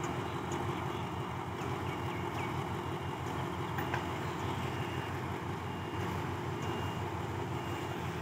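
Diesel locomotive engine running with a steady low rumble. A faint high tone comes and goes in the second half.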